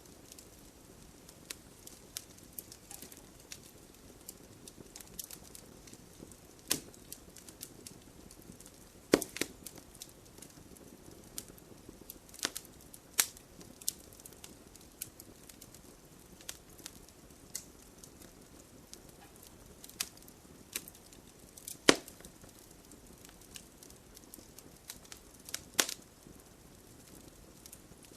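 Bonfire crackling: irregular sharp pops and snaps over a soft steady hiss, with the strongest pops about nine seconds in and again around twenty-two seconds.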